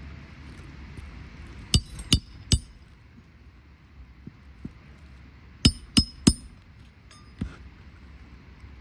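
Hammer driving roofing nails through asphalt shingles: two nails, each set with three quick ringing blows, about four seconds apart, with a few lighter taps between.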